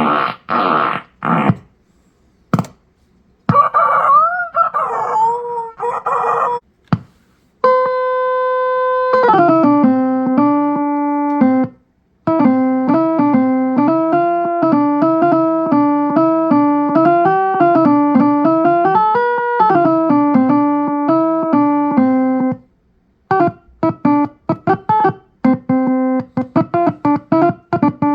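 Circuit-bent toy sound box built from a kids' electronics kit: first a warped electronic sound effect with gliding pitch, then its optical theremin sounding a buzzy electronic tone that jumps between fixed scale notes (A to G), wandering up and down. Near the end come quick, short staccato notes.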